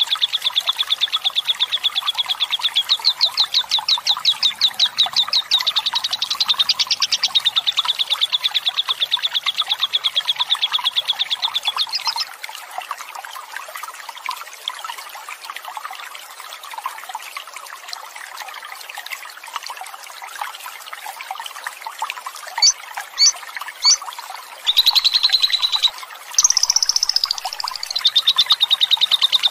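Lovebird 'ngekek panjang': a long, very fast trilling chatter of rapid high notes, the continuous chattering song that lovebird keepers prize. It runs for about twelve seconds, drops to softer twittering with a few sharp high chirps and a falling run of notes, then the fast trill resumes near the end. Flowing water murmurs steadily underneath.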